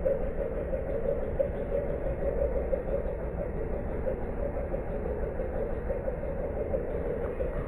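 Pickup truck engine idling, a steady low rumble.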